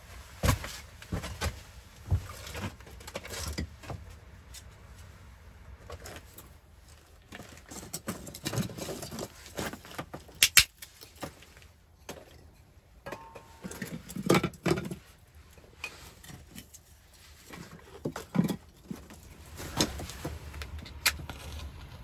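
Split wooden kindling sticks knocking and clattering as they are handled and laid into the firebox of a clay-plastered brick stove: irregular sharp knocks with pauses between. A match is struck near the end.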